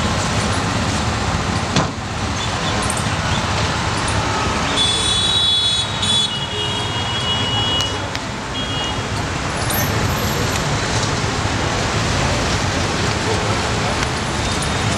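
Steady city road-traffic noise mixed with indistinct voices of passers-by. A sharp click sounds about two seconds in, and a brief high-pitched tone about five seconds in.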